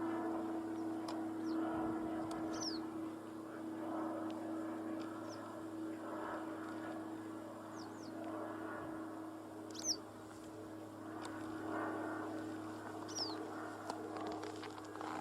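Small birds giving short, high, falling chirps every second or two, over a steady low hum and a muffled, noisy background that rises and falls.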